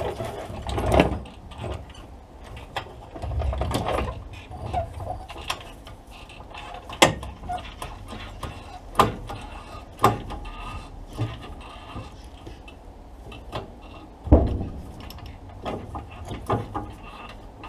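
Hand tools on metal while undoing the rear axle mountings under a car: scattered metallic clicks and knocks with the odd clatter, and a handful of sharper clanks spread through, the loudest a little past halfway and again near the end.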